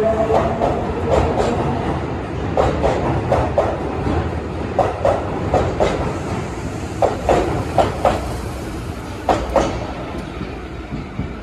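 Osaka Metro 30000A series subway train pulling out along an underground platform: its motor whine fades in the first moment, then the wheels clack in quick pairs over a rail joint as each car's bogies pass, under a steady rumble that slowly dies away as the last car goes by.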